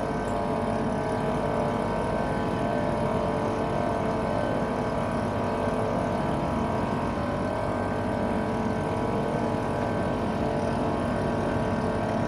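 Engine of the boat towing the engineless sailboat, running steadily at a constant speed with an even drone.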